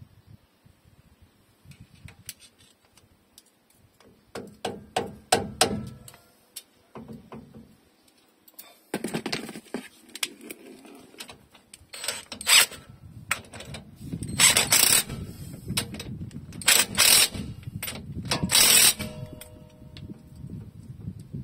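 Socket ratchet clicking in short runs, with sharp metal clinks, on the hardware of an open rear differential.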